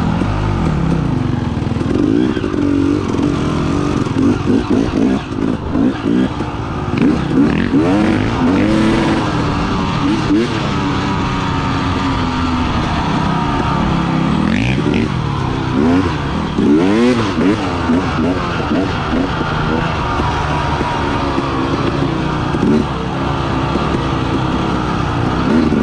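KTM enduro dirt bike engine running under load on a trail ride, its pitch climbing and dropping again and again as the throttle is worked, with repeated sharp rev rises around the middle of the stretch.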